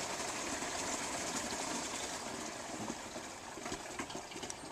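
Water poured from a 20-litre bucket through a cloth filter into a plastic barrel, a steady rush of falling water that gradually fades as the bucket empties, with a few light knocks near the end.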